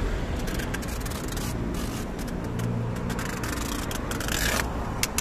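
A large taped cardboard box scraping and rubbing against the cargo floor of an SUV as it is shoved in, in a run of short scrapes and knocks. Under it runs a low, steady vehicle engine hum.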